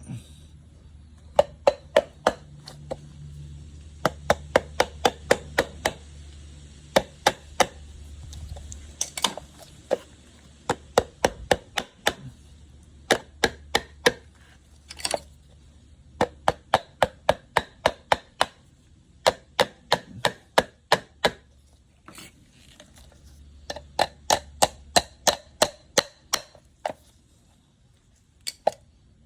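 Hammer tapping the end cap of a Toyota Sienna radiator cooling fan motor back onto the motor housing: runs of quick, sharp strikes, about three a second, broken by short pauses.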